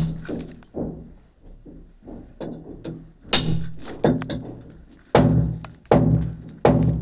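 Hammer striking a steel chisel into a brick wall to cut a chase for plumbing, about seven blows, unevenly spaced, each a sharp metal strike with a short ring, with a pause of a couple of seconds after the first two.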